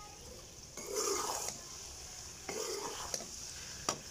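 Perforated metal spoon stirring a chicken and vegetable stir-fry in a metal pot: two scraping strokes, a sharp clink near the end, over a faint steady sizzle.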